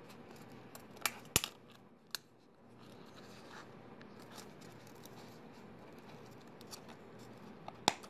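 Handling of a new kerosene heater wick on its steel wick-holder sleeve: a low scratching and rubbing of cloth wick against metal. A few sharp metal clicks come a little after a second in and again near the end as the sleeve's pins snap into the wick's holes.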